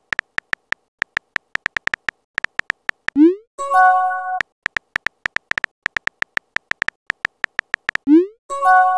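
Texting-app sound effects: rapid keyboard typing clicks, then a short rising swoosh and a brief multi-tone chime as a message is sent about three seconds in. The typing clicks resume, and the swoosh and chime come again near the end.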